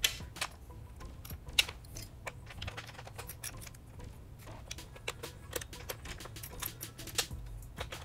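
Irregular light clicks and taps of hands handling the motorcycle's rear plastic parts and wiring connectors, over faint background music.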